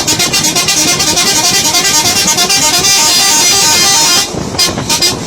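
Horn of a Mercedes-Benz Axor 1840 truck being played. It sounds continuously for about four seconds with shifting pitch, then breaks into rapid short toots near the end.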